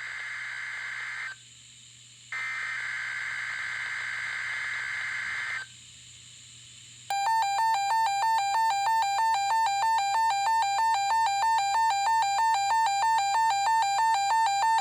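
NOAA Weather Radio SAME digital header bursts: a harsh, screechy data squeal that stops about a second in and sounds again for about three seconds after a one-second pause. About seven seconds in, a loud electronic alert begins, a buzzy tone flipping between two close pitches several times a second.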